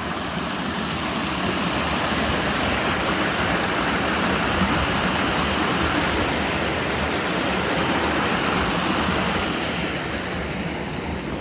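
River water rushing, a steady noise that grows a little louder through the middle.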